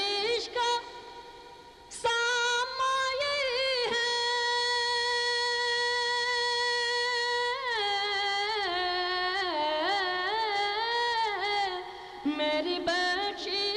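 A man singing a naat unaccompanied, in Urdu devotional style: a long held high note through the middle, then ornamented, wavering turns that fall away, and a new phrase rising after a short break near the end.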